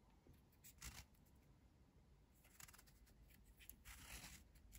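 Faint scratching and rustling of fingers picking at the tear-off seal on a whisky bottle's cap, in a few short bouts.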